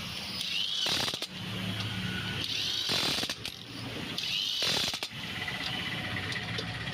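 Ratchet wrench being worked in three strokes about two seconds apart, clicking as the handle swings.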